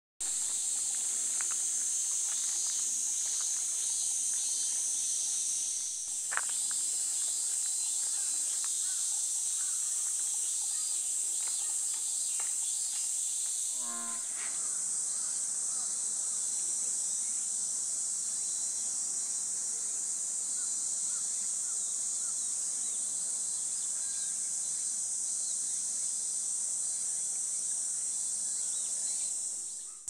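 Steady, high-pitched chorus of summer insects, with a short sharp note about six seconds in and a brief low pulsed call about fourteen seconds in.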